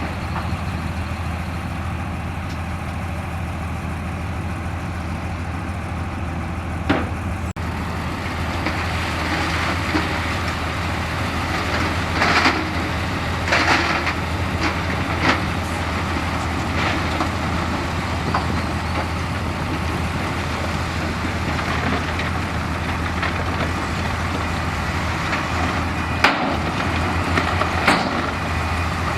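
Heavy earthmoving machine's diesel engine running steadily under load while rock is pushed and dumped, with several sharp knocks of rock striking rock or steel, the loudest near the end.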